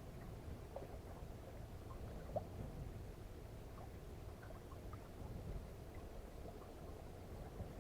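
Faint water gurgling and lapping against a small sailboat's hull, with scattered small ticks and a steady low rumble underneath.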